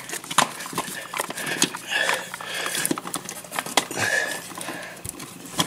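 Irregular clicks and scrapes of a GFCI receptacle and its stiff wires being pushed by hand back into the electrical wall box.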